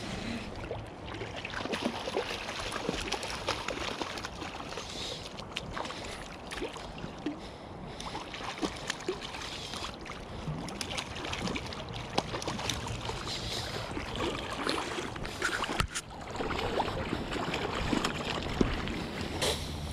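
A hooked coho salmon splashing in shallow river water as it is brought in to the gravel bank, with scattered clicks and knocks over the noise of the water.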